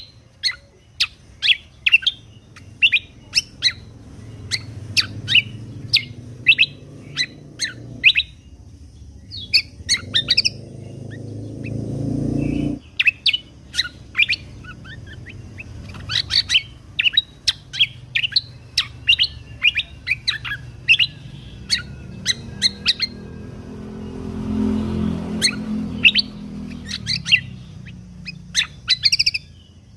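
Cucak kombo (greater green leafbird) singing: a rapid run of short, sharp, high notes, a few each second, broken by brief pauses. A low rumbling noise swells underneath twice, the first cutting off suddenly.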